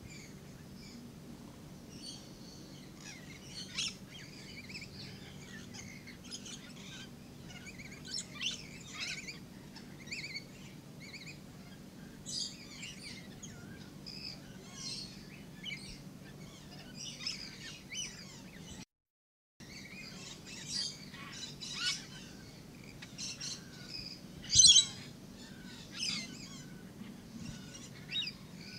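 A flock of lorikeets chattering and screeching: many short, high calls in irregular bursts, with one sharp, loud screech a little past two-thirds of the way through.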